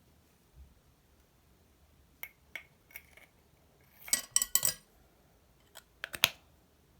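Short, sharp clicks and clinks of small hard objects being handled: three light clicks, then a quick loud cluster, then another loud pair near the end.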